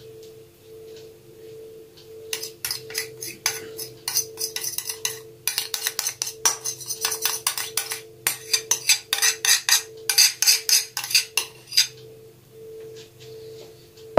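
Metal spoon scraping chocolate glaze out of a ceramic bowl: a quick run of scrapes and clinks from about two seconds in, stopping a few seconds before the end. A faint pulsing tone runs underneath, and a knock comes at the very end as the bowl is set down on the counter.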